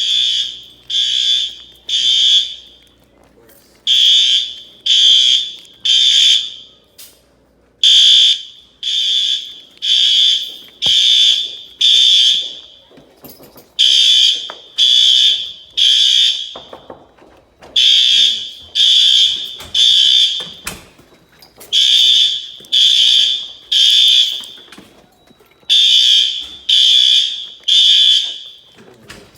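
Gamewell-FCI 7075 fire alarm bell ringing in pulses of under a second, mostly in groups of three with a short gap between groups: the temporal-three evacuation pattern.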